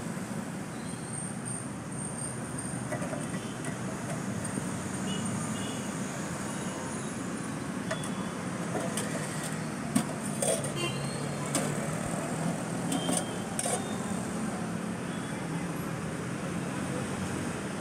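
Steady street traffic noise with a low hum throughout. Midway, a few sharp metallic clicks and clinks as the steel lids and utensils of a food stall's sauce containers are handled.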